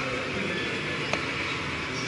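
Steady crowd babble of a busy exhibition hall, with one sharp click about a second in.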